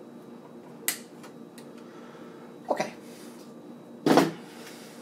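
Hand handling noise from working on cables inside a PC case: a sharp click about a second in, then two louder short knocks, over a steady low hum.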